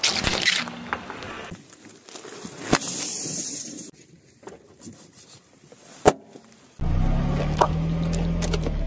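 A car tyre rolling over a run of objects: a rubber toy squashed under it at the start, a single sharp pop about six seconds in as an inflated rubber glove bursts, then plastic yogurt cups crackling and crunching under the tyre over the car's steady low engine hum.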